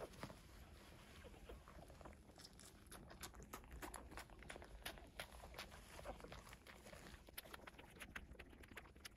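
Faint, irregular little clicks and smacks of young Cavalier King Charles Spaniel puppies suckling at their mother, with soft rustling of fur and bedding. The clicks come thicker from about two seconds in.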